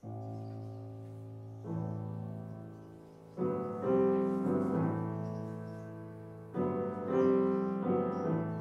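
Grand piano playing a series of chords in a classical chamber piece, each struck sharply and left to ring and fade before the next, about six in all.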